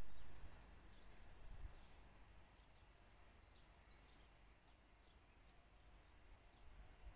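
Quiet outdoor ambience: birds chirping in short whistles and rising-and-falling calls over a steady high-pitched buzz and a low rumble. A brief, louder low rumble comes at the very start.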